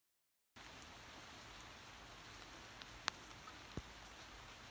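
Steady rain falling, a faint even hiss, with a few sharp ticks, the loudest about three seconds in. The sound cuts in abruptly after half a second of dead silence.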